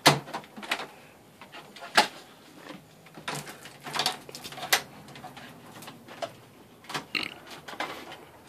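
Scattered clicks, knocks and light rustling of hands working cables and plugs behind a flat-screen TV on a wooden stand, with a sharp knock right at the start and another about two seconds in.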